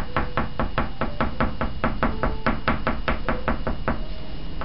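Oil pastel stick tapping on paper in a fast, even run of short dabs, about five or six a second, laying down lots of little marks. The taps stop briefly near the end.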